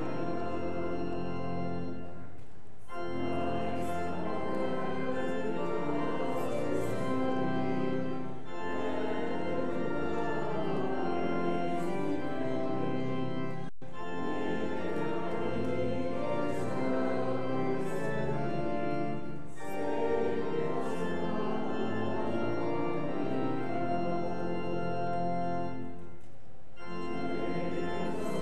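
Church organ playing a hymn line by line, with a short break between lines about every five or six seconds.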